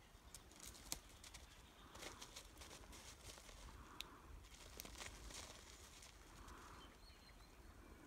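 A cat mewing softly three times, each mew short and about two seconds apart, over scattered faint clicks and snaps of twigs and snow underfoot.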